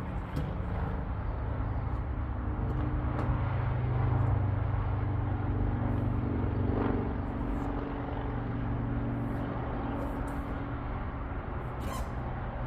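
A steady low mechanical hum, a little louder in the middle, with a few faint clicks.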